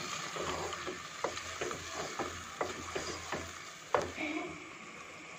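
Wooden spoon stirring chicken in a non-stick pot, with repeated short knocks and scrapes against the pot over a soft sizzle from the simmering gravy. The stirring ends about four seconds in with a last louder knock, leaving only the sizzle.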